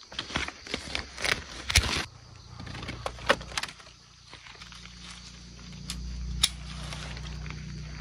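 Grapefruit being picked by hand with pruning shears: leaves rustling and a cluster of sharp clicks and knocks in the first two seconds, with a few single clicks later. Under this runs a low steady hum that grows louder about six seconds in.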